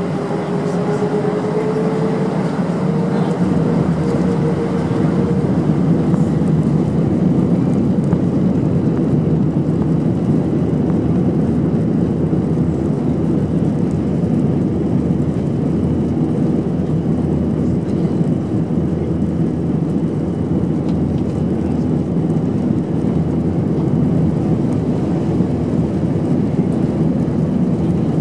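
Airbus A319 jet engines heard from inside the passenger cabin on the takeoff roll. A rising whine as the engines spool up to takeoff thrust over the first few seconds, then loud, steady engine and runway noise.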